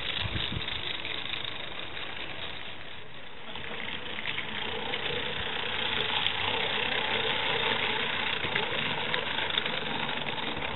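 A small Gauge 1 live-steam locomotive with a vertical boiler running along the track: a steady hiss of steam with rapid light ticking from the engine and wheels.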